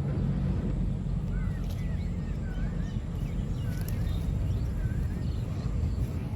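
A bird repeating short, curling whistled chirps about once a second over a steady low rumble.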